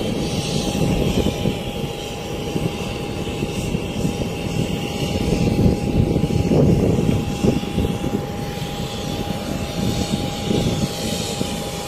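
Steady aircraft engine noise: a constant rumbling drone with a single high whine held at one pitch.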